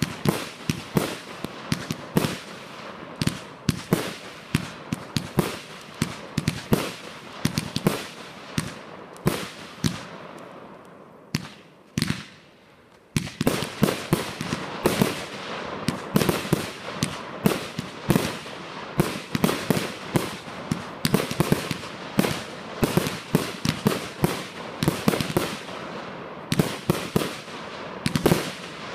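Professionally fired aerial fireworks display: shells bursting in rapid succession, several sharp bangs and cracks a second. The barrage dies away for a couple of seconds near the middle, with one lone bang, then starts up again just as densely.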